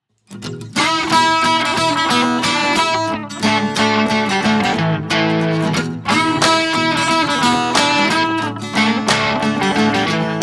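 Background music led by a strummed, plucked guitar with a steady rhythm, starting about a third of a second in.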